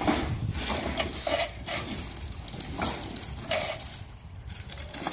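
Ride-on toy excavator's metal levers and pivots clicking and creaking in irregular strokes as its bucket is worked through snow, with the scoop scraping snow.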